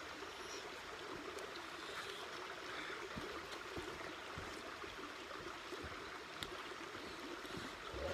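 Steady rushing of running water from a stream, with a few faint clicks of utensils against steel bowls.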